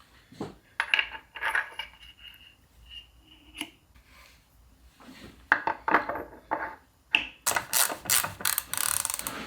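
Steel gearbox parts and hand tools clinking and clattering on a workbench during Land Rover Series gearbox assembly, with a few short metallic rings. Near the end comes a quick run of rattling clicks lasting about two seconds.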